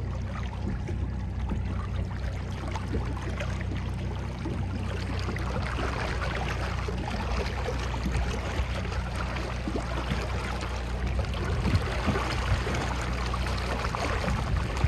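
Water rushing and splashing along a boat's hull as a small swordfish is held alongside and towed slowly to revive it, getting louder about halfway through. Under it the boat's engine drones steadily.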